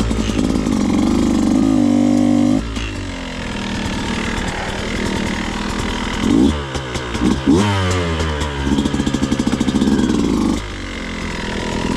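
Beta 200RR two-stroke enduro bike engine running at low speed, with several quick throttle blips between about six and nine seconds in, as the rider rocks the bike and pops the clutch to lift the front wheel over rock.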